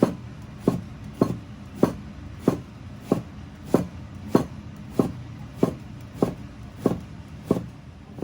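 Kitchen knife slicing food on a cutting board, one sharp chop every 0.6 seconds or so in a steady even rhythm, stopping shortly before the end.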